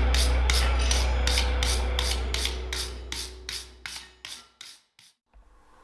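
Rhythmic scraping of a hand tool on the forged steel hook, about three even strokes a second, over a steady low hum. Everything fades out about five seconds in.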